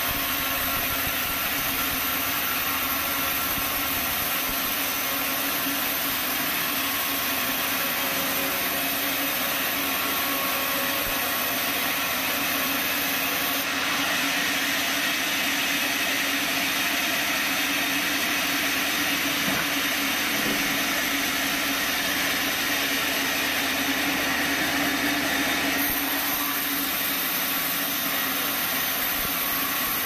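Band sawmill running steadily, its motor and band blade making a continuous machine noise. For about twelve seconds in the middle it turns harsher and slightly louder as the blade saws through a timber block.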